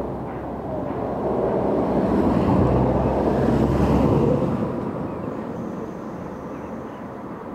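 Distant steam locomotive working hard, its exhaust heard as a continuous roar without distinct beats that swells for a few seconds and then fades, with wind on the microphone.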